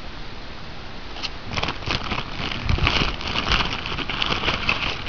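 Clear plastic packaging crinkling and rustling as it is handled, starting about a second in as a dense run of quick crackles.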